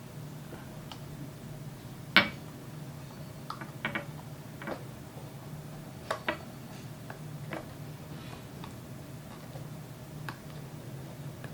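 Scattered light clicks and knocks of metal parts being handled while a brake caliper is reassembled, with one sharper knock about two seconds in, over a steady low hum.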